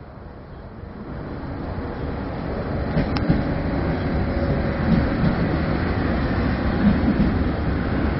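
TILO Stadler FLIRT electric multiple unit approaching and running along the station platform. Its rumble grows louder over the first couple of seconds, then holds steady, with a sharp click about three seconds in and a few low thumps.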